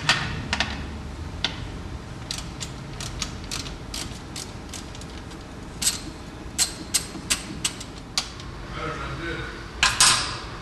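A run of short, sharp mechanical clicks and light knocks, about two to three a second and irregular, from hand work on a C5 Corvette headlight assembly and its fasteners, with a louder clatter of clicks near the end.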